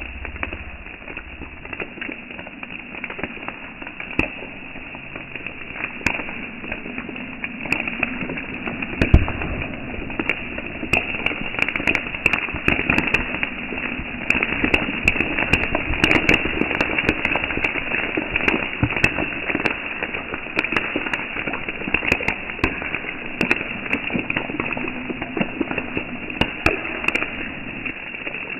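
Sodium metal reacting violently on pond water: a steady dense crackling with many sharp pops, like firecrackers going off, the loudest pop about nine seconds in.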